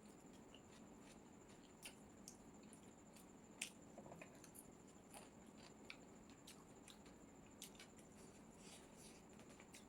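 Near silence with faint, scattered soft clicks and smacks of someone chewing and eating chow mein, the clearest a little before four seconds in, over a steady faint high-pitched whine.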